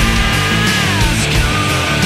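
Loud hard rock music with a steady, dense band sound; a held high note bends downward about a second in.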